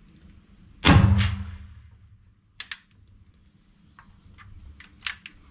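A single shot from a muzzleloading rifle: one loud report, with a second sharp crack a moment after it, dying away over about a second. A few light clicks and knocks of handling follow.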